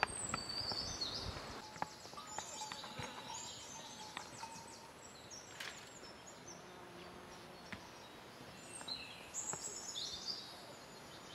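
Birds chirping and trilling in quick high runs, strongest near the start and again about nine seconds in, with a few faint clicks and taps in between.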